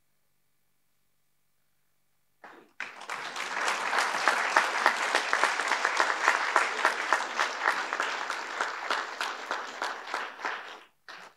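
Audience applauding, starting about two and a half seconds in, then thinning out and dying away near the end.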